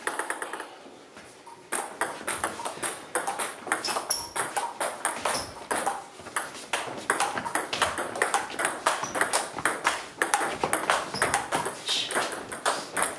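Table tennis rally: the ball clicks sharply off the bats and the table in quick succession, starting about two seconds in.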